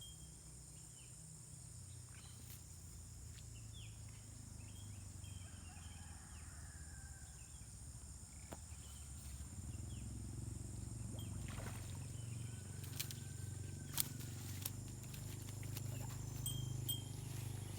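Outdoor ambience: a steady high insect drone with short bird chirps over a low rumble, likely wind on the microphone, which grows louder about halfway through. A few sharp clicks come near the end.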